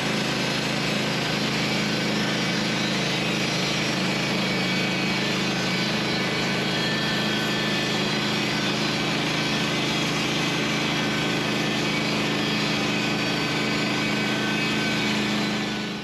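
Woodland Mills HM130 Max portable band sawmill running steadily under load, its gasoline engine and band blade cutting lengthwise through a freshly felled larch log. The sound stops abruptly at the end.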